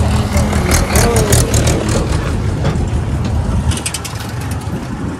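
Diesel farm tractor towing a trolley passes close on a gravel track, its engine running loudly with clattering rattles, then easing off somewhat as it pulls away.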